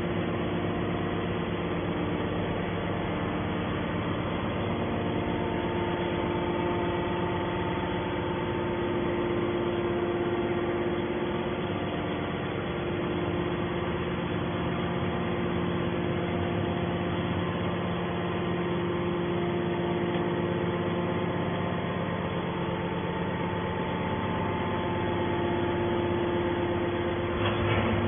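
Hydraulic metal baler's power unit (electric motor and hydraulic pump) running with a steady hum, a higher tone swelling and fading over it at times.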